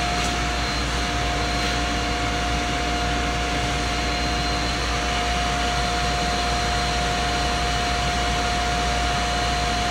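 Steady mechanical drone of running foundry machinery, an even rushing noise with a few constant hums; the pouring of the molten metal into the sand mold adds nothing that stands out.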